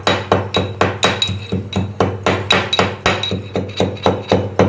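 Pestle pounding in a mortar, crushing cloves, black pepper and tulsi leaves with quick, even strokes, about five a second.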